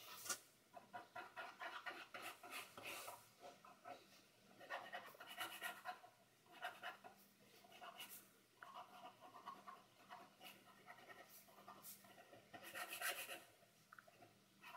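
Faint scratching of a pen nib on paper as a drawing is inked, in clusters of quick short strokes with brief pauses between them.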